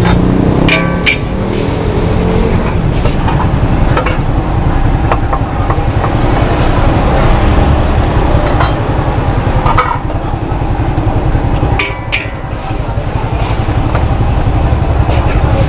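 Mee goreng stir-frying in a large wok: sizzling over a steady low rumble, with the metal spatula clinking and scraping against the wok now and then.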